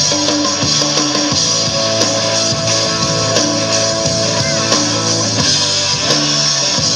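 Loud rock music driven by electric guitar.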